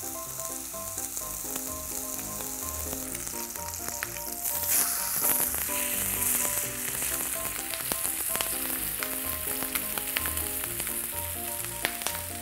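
Thick slab of pork belly sizzling and popping as it sears in a hot frying pan. The sizzle grows louder for a couple of seconds about four seconds in. Light background music plays underneath.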